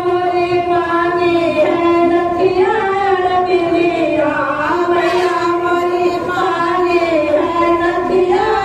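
A woman singing a Hindu devotional bhajan to the Mother Goddess, unaccompanied, in long held notes that waver and slide between pitches.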